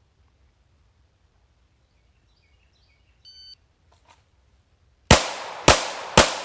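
A shot timer beeps once, and just under two seconds later a Glock 19 9mm pistol fires three quick shots, about half a second apart: a timed draw-and-shoot string.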